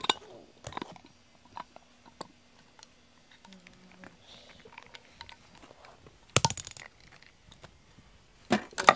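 Glass jar with a metal screw-on lid being handled: small scattered clicks and scrapes as the lid is turned, then two louder clattering knocks, about six and a half and eight and a half seconds in, as the glass jar is knocked against the wooden tabletop.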